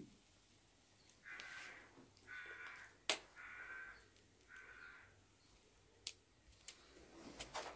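A crow cawing four times, each caw about half a second long and about a second apart. A few sharp crackles from the wood fire; the loudest comes about three seconds in.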